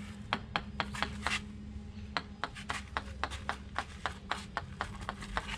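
Fiberglass sailboat keel tapped with a small hard tool in a quick series of sharp taps, about four a second, with a short pause about one and a half seconds in. It is a tap test, sounding the keel for hollow voids: solid in the forefoot, hollow in the aft section.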